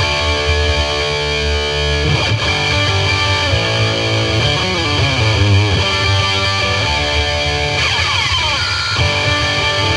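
Distorted electric guitar playing: a held chord for about two seconds, then moving lines of notes.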